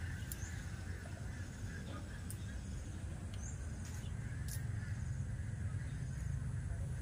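Outdoor ambience over a weedy pond: a steady low hum, with a few short, faint high bird chirps and some light clicks scattered through.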